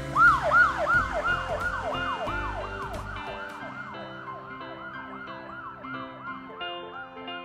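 Police siren sounding in a fast yelp, about three quick rise-and-fall sweeps a second. It is loudest at the start and fades away as background music comes up under it.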